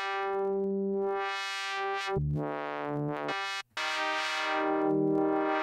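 Arturia Pigments software synthesizer's wavetable oscillator playing the 'Modular BPF Mod' wavetable: sustained synth notes whose tone sweeps brighter and darker as the wavetable position is scanned. The notes change twice, the second time after a brief dropout a little past halfway.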